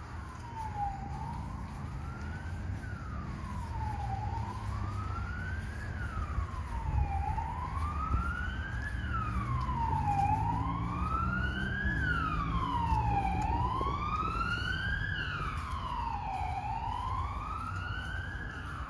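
Emergency vehicle siren wailing, its pitch rising slowly and falling more quickly about every three seconds, over a low rumble. It grows louder towards the middle, then eases off a little.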